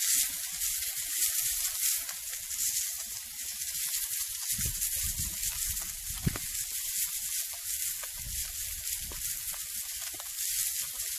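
Pollack fillets frying in sunflower oil in a pan on a portable gas stove: a steady sizzling hiss with fine crackles.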